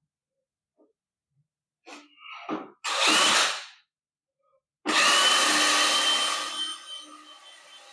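DeWalt 20V Max XR brushless cordless drill running in bursts: a short spin-up about three seconds in, then a longer run about five seconds in whose pitch rises and then holds steady before dying down.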